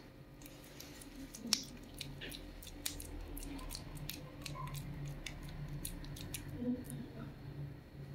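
Wet, sticky squelching of raw bakso meatball paste being squeezed up through a fist, with many small sharp clicks as a metal spoon scoops the balls off the hand into the pot. Under it runs a low steady hum.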